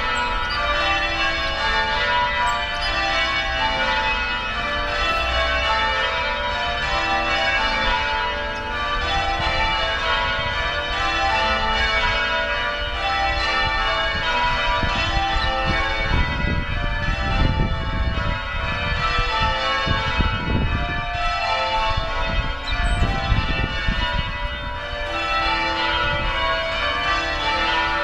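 Tower bells of Washington National Cathedral ringing changes, many bells striking in quick, overlapping succession without a break. Low rumbling bumps on the microphone come in partway through.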